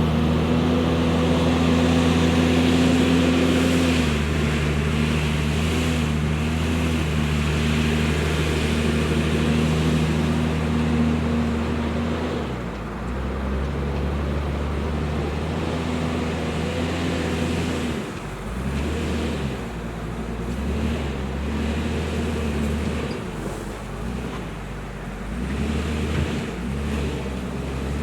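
Heavy diesel engine of earthmoving machinery running steadily, its pitch dipping slightly about four seconds in. It eases off about twelve seconds in and again around eighteen seconds, then runs more unevenly.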